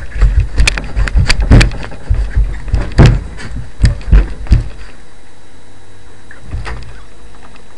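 A run of loud, irregular knocks and thumps picked up by a webcam microphone, lasting about five seconds, then only a low steady hum.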